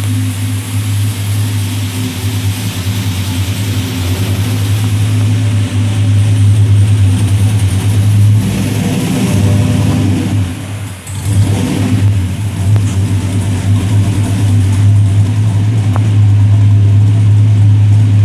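A 6.0-litre LS V8, swapped into a dually pickup in place of its original 350, running at a steady idle through its exhaust, with a brief dip and pickup in level a little past the middle.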